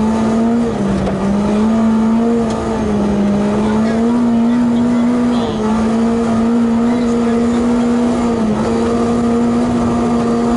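Lexus Altezza rally car's engine running hard, heard inside the cockpit. Its note holds a nearly steady pitch with a few brief small dips, over steady tyre and road noise from the snowy gravel road.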